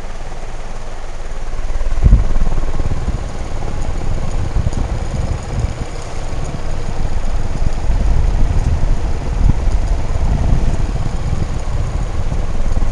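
S.M.C. M48 industrial ceiling fan running with a steady whoosh. From about two seconds in, the air it moves buffets the microphone in uneven low gusts.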